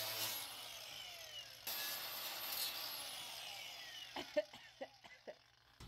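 Angle grinder winding down after cutting through a plastic headlight housing, its whine falling in pitch over the first few seconds. A few light knocks follow near the end.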